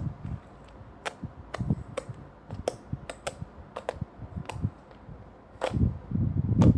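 Slime being pressed and stretched by hand, giving sharp, irregular popping clicks as air pockets burst. About five and a half seconds in, a denser, louder squishing begins as the slime is worked harder.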